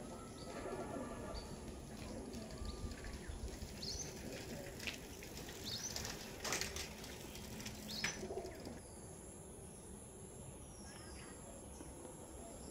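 Quiet outdoor ambience with scattered bird chirps and a few clicks and rustles from handling or footsteps. The tractor engine is not running.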